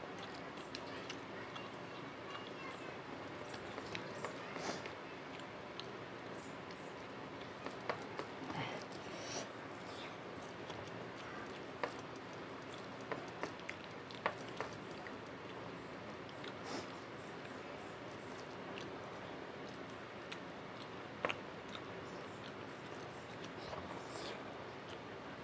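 Eating sounds: a man chewing and smacking his lips on rice and chicken gravy eaten by hand, with fingers squishing and mixing rice on the plate. They come as scattered small clicks and smacks over a steady hiss.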